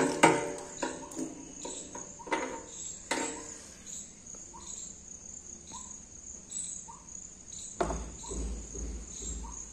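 A cricket trilling steadily throughout, with faint short chirps about once a second. Over it, a few sharp clicks and knocks in the first three seconds and a low thud near the end as the plastic fuel pump assembly is handled and lifted out of the motorcycle's tank.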